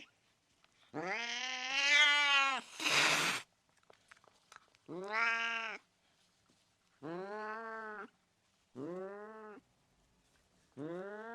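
Angry cat giving a series of about five drawn-out yowling meows, each rising and then falling in pitch. A short hiss follows right after the first and loudest call, about three seconds in.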